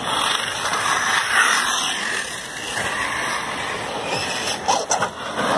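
Radio-controlled electric trophy trucks running on the dirt track: a steady hiss of tyres on dirt and motors, with no engine note.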